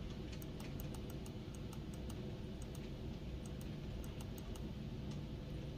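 Light, irregular clicks from a computer mouse, a few a second, over a steady low room hum.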